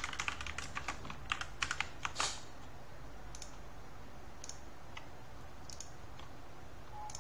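Computer keyboard typing: a quick run of keystrokes for about two seconds, then a few single clicks spaced roughly a second apart.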